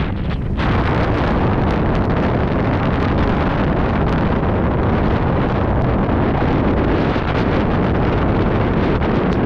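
Heavy wind buffeting on a helmet-mounted camera's microphone as a snowboard rides down through powder, mixed with the hiss of the board sliding over snow. It runs steadily and loud, with a brief dip in the hiss just after the start.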